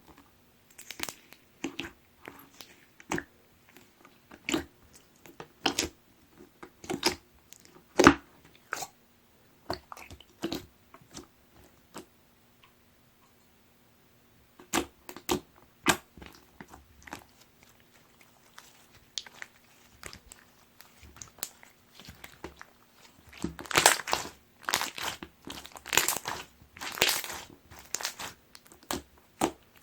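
Jelly slime being squeezed and poked by hand, giving irregular sticky pops and crackles with short pauses between. The pops come thick and fast for a few seconds near the end.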